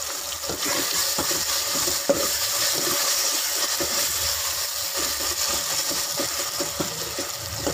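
Metal spoon stirring and scraping onions, leeks and ginger-garlic paste frying in an aluminium pot, with irregular clinks against the pot over a steady frying sizzle. The sharpest clink comes about two seconds in.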